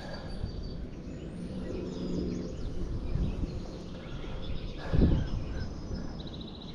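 Outdoor background noise with faint bird calls, a brief louder sound about five seconds in, and a fast, high bird trill near the end.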